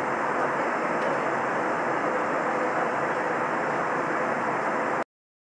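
Steady jet engine and airflow noise inside the cabin of an Airbus A320 climbing out after takeoff, with a faint steady hum in it. It cuts off suddenly about five seconds in.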